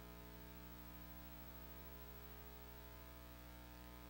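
Near silence: only a steady electrical mains hum, with no other sound.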